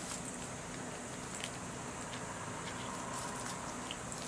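A few faint rustles and light taps as a cat paws and bites a wand toy with ribbon streamers on a bamboo mat, over a steady low hum.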